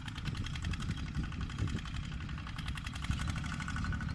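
Diesel engine of a walk-behind (two-wheel) tractor running steadily with a rapid, even firing beat.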